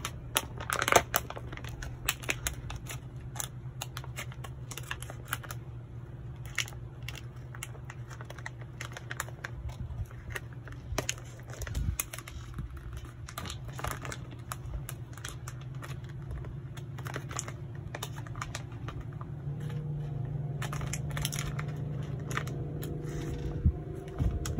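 Scissors snipping through a disposable fly trap's plastic bag and packaging, with the bag crinkling and many scattered clicks and rustles. A steady low hum runs underneath, stronger in the last few seconds.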